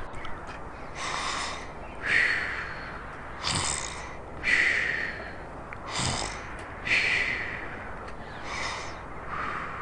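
A person snoring: slow, breathy snores in and out, repeating about once a second, voiced for a sleeping toy soldier.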